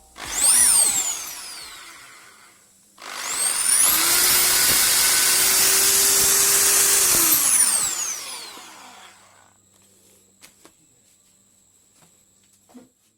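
Electric drill motor whine. First a brief burst that winds down over a couple of seconds, then a spin-up to a steady full-speed run for about four seconds, released and winding down.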